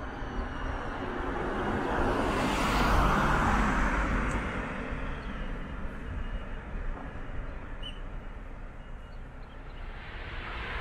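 A vehicle passing by: its noise swells to a peak about three seconds in and fades away over the next few seconds, over a steady low rumble.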